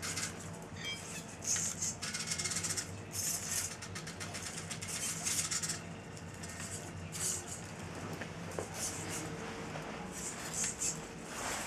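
Hobby servos of a homemade robot dog whirring in short, irregular bursts about once a second as it steps and turns in place, with its metal legs rattling.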